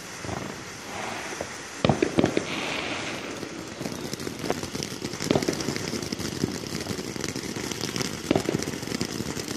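Consumer fireworks going off: a steady run of sharp pops and crackles, with two louder bangs about two seconds in.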